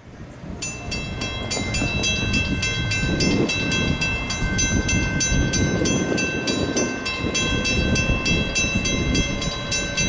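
Railroad warning bell ringing rapidly, about three strikes a second, over the low rumble of an approaching train.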